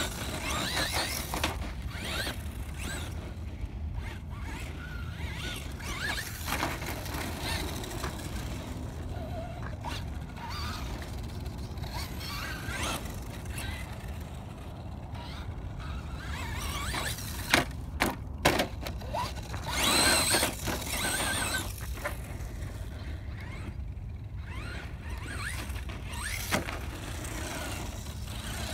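Traxxas Slash 2WD brushless RC monster truck driving over packed crushed-seashell dirt: scattered crunching and scraping of its tyres on the shells, with short high motor whines as it accelerates. The loudest stretch, a few sharp knocks and then a longer whining burst, comes about two-thirds of the way through.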